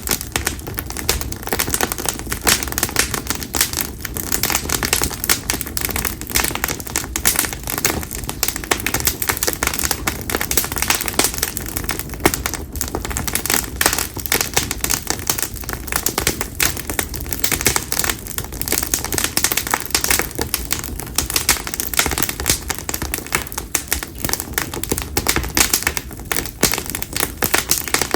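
Campfire of split konara oak logs crackling and popping continuously, a dense run of quick irregular snaps over a steady low rush of flame.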